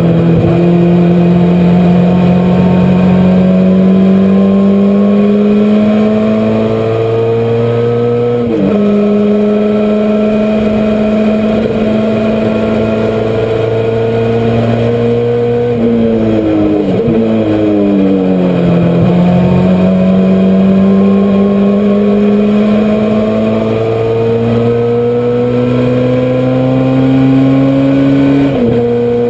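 Honda CRX race car engine heard from inside the car at racing speed, pulling up through the revs, with a quick drop in pitch at an upshift about eight seconds in. Around the middle the pitch falls in steps with short blips as the driver brakes and downshifts. It then climbs steadily again to another upshift near the end.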